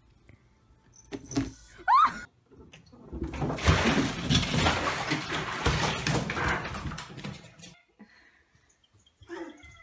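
Cats scrambling and splashing in a bathtub of water: a dense, noisy stretch of splashes and thumps lasting about four seconds. Just before it comes a short rising squeal.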